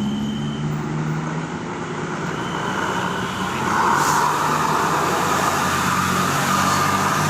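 Tour bus running on the road, engine and tyre noise, growing louder about four seconds in.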